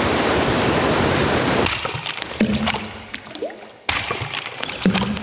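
Rain sound effect playing back: a dense, steady rain hiss that cuts off abruptly after under two seconds, followed by scattered water drops dripping and plopping into water, each drop with a short rising pitch.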